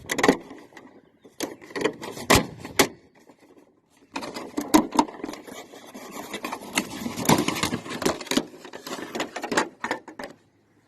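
New Bright radio-controlled toy truck driving with the camera riding inside it: the small motor and gears run in spurts amid clattering rattles and knocks. Everything stops for about a second near the three-second mark, then starts up again.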